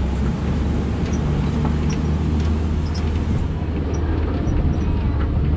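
Safari ride truck's engine running with a steady low hum and rumble, heard from aboard the truck.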